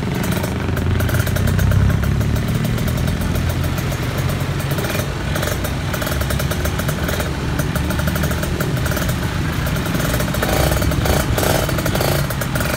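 Kawasaki Ninja 150 R's single-cylinder two-stroke engine running through a Rozzo aftermarket expansion-chamber exhaust, swelling briefly about two seconds in and otherwise holding steady.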